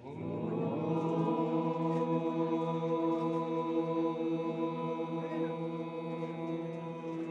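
A voice holding one long chanted note, sliding up in pitch over about the first second and then held steady without a break.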